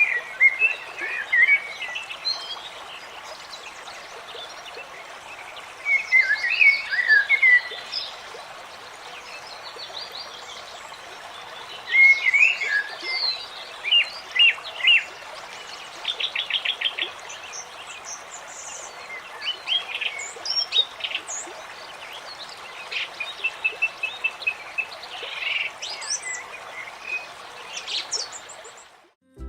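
Forest nature-ambience sound effect: several birds chirping and singing in bursts, including a rapid trill about halfway through, over a steady background hiss of running water.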